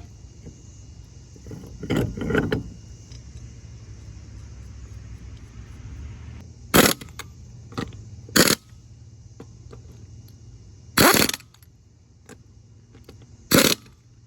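Metal clanks and clinks of hand tools and parts during repair work on a cart's front suspension bushings: about five sharp knocks a couple of seconds apart, over a low steady hum.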